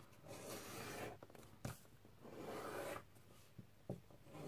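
Sheet of paper being folded and creased by hand on a desk: faint rubbing and rustling in two stretches, with a light tap in between.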